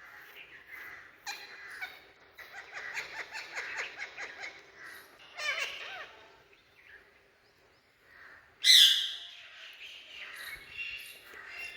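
Indian ringneck parakeet chattering in a quick run of calls, then letting out one loud harsh screech about nine seconds in.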